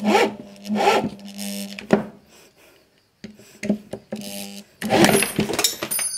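750-watt corded drill driving an 8 mm screw into a block of hardwood, run in a string of short bursts on the trigger with a brief pause partway through. The motor speeds up and bogs down as the screw binds, and the drill kicks hard against the load.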